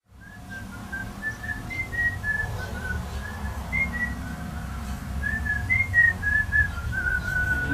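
A person whistling a tune, a string of short stepwise notes, over a low rumble.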